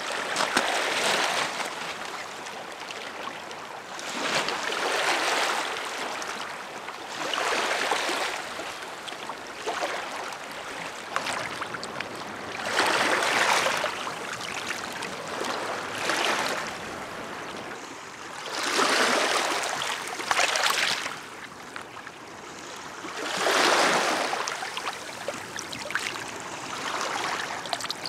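Small waves washing over a shallow pebble-and-stone shoreline, the hiss swelling and falling every four or five seconds.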